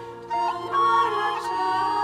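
Background music: a slow melody in long held notes that step from one pitch to another, over sustained lower tones.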